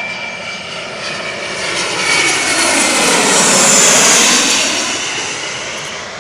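Large airliner passing close by, its engine noise swelling to a peak about four seconds in and then fading away.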